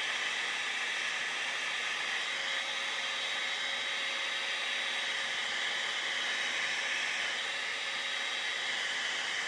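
Handheld hair dryer blowing steadily, heat-setting freshly airbrushed paint on a fishing lure: an even rush of air with a faint motor hum.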